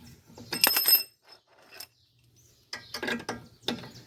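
A 13 mm wrench clinking and knocking against metal as it is put to the bolt of the stabilizer-bar end bushing. A ringing metallic clatter comes about half a second in, and a few duller knocks follow near three seconds.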